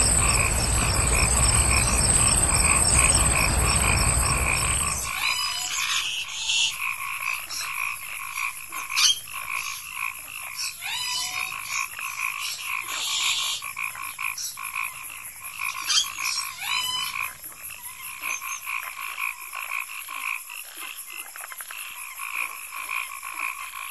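A chorus of frogs croaking steadily. A low rumble sits under it for the first five seconds and then cuts off sharply.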